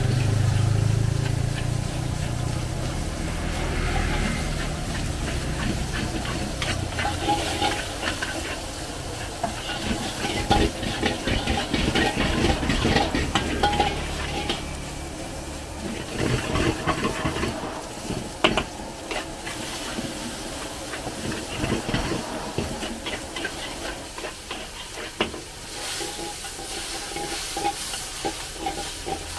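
Long metal spatulas scrape and clank against steel woks over steady sizzling as rice is stir-fried over gas burners. The strokes come as quick, irregular knocks all the way through, and a low rumble fades out in the first few seconds.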